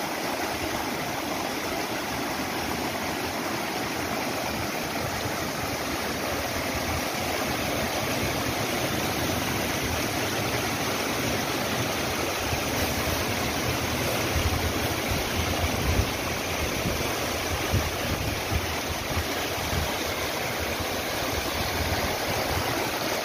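Shallow mountain stream cascading fast over bare rock slabs, a steady rushing of water, with a few low bumps about two-thirds of the way through.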